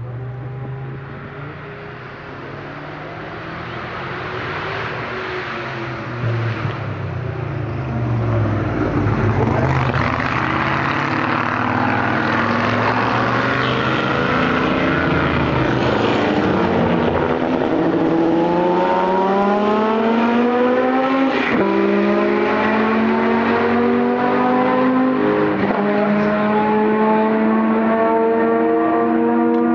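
Historic racing car engines at full throttle as cars pass and accelerate away, the sound swelling over the first several seconds. Later one engine's pitch climbs steadily under acceleration, with short breaks that sound like gear changes.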